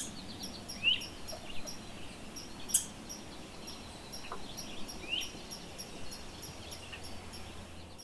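Woodland ambience with birds chirping: a high chirp repeated evenly about four times a second, and a couple of short rising calls. There is a sharp click right at the start and another about three seconds in.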